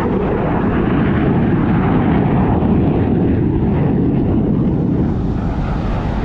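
An aircraft flying past over the ocean, a steady roar that swells a little around the middle, mixed with the wash of breaking surf.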